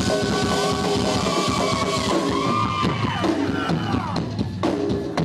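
Live rock band playing loud, with the drum kit prominent. In the second half the sound thins, and separate drum and cymbal hits stand out.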